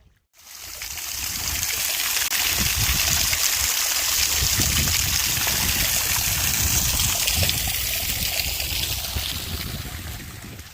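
Shallow sea water washing and trickling over flat rock, a steady rushing hiss that swells in over the first couple of seconds and fades away near the end.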